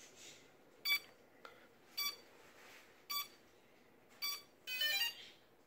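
Xiaomi Mi Drone 4K powering on: four short electronic beeps about a second apart, then a quick rising chime of several tones near the end, the start-up tones of the freshly reassembled drone.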